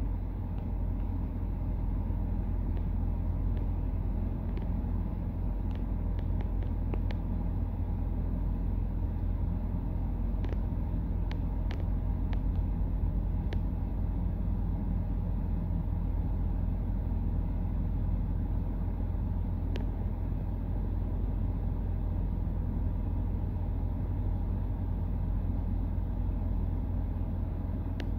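Car idling, heard from inside the cabin: a steady low rumble, with a few faint light clicks in the middle.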